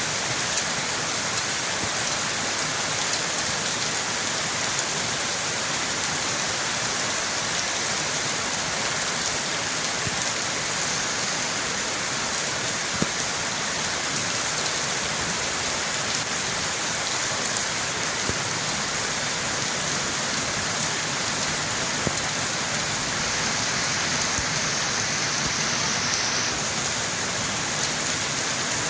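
Steady rain falling and pattering on surfaces, an even hiss with scattered drop ticks.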